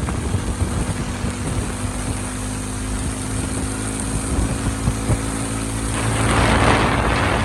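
Motorcycle engine running steadily while riding, with wind rushing over the microphone. Near the end a louder rush of noise swells up.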